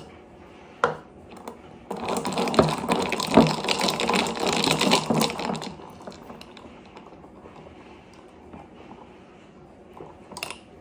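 Metal straw stirring iced coffee in a glass mason jar, the ice cubes rattling and clinking against the glass in a quick run of clicks for about four seconds.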